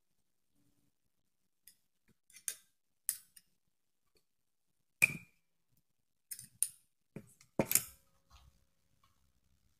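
A thin metal spoon scraping and clicking through granular soil inside a drinking glass, in scattered short strokes, with a sharp clink against the glass about halfway through that rings briefly. A louder knock and rattle come a little later.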